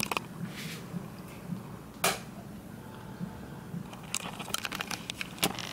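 Scattered short clicks and ticks over a low steady hum, with one sharper click about two seconds in and a quick run of faint ticks near the end.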